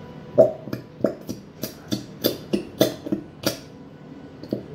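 Plastic squeeze bottle of Elmer's glitter glue being squeezed hard upside down, squirting and sputtering out thick glue. It gives a quick run of about a dozen short sharp squirts, roughly three a second, then one more near the end.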